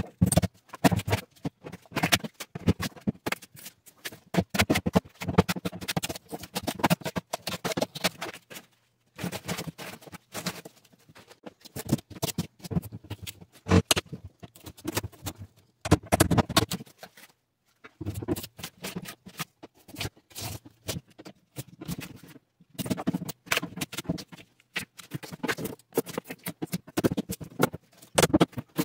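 Rigid polyurethane foam insulation being broken and pulled out of a refrigerator cabinet by hand and with a claw hammer: an irregular crackle of snapping, crunching and scraping, with a couple of brief pauses.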